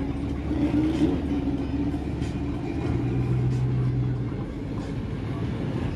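Car engines rumbling at low speed, a steady low drone with a held hum; a deeper hum joins about three seconds in and drops away over a second later.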